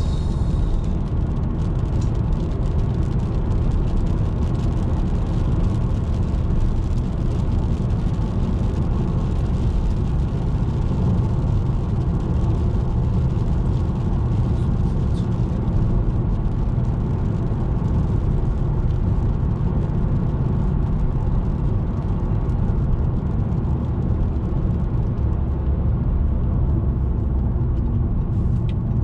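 Hyundai Veloster Turbo being driven: a steady, low road and engine noise that holds an even level throughout.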